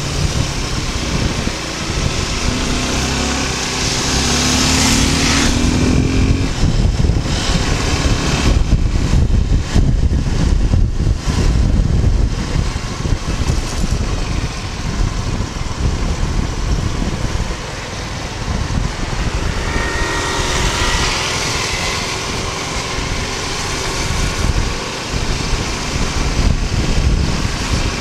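Suzuki Gixxer 250's single-cylinder engine running as the motorcycle rides at about 30 km/h, with wind rumbling on the microphone.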